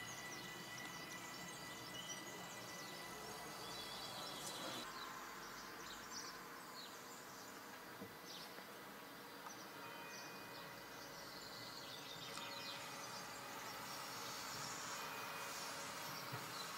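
Faint outdoor ambience: a steady low background hiss with scattered short, high chirps.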